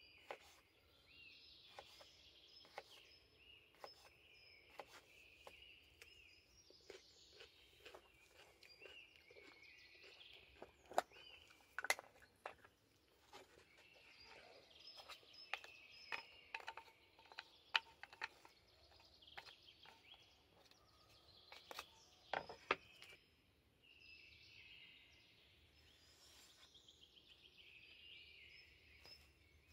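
Knife clicking and tapping on a small wooden cutting board as food is sliced, in irregular sharp knocks that come thickest in the middle. Songbirds chirp and sing throughout.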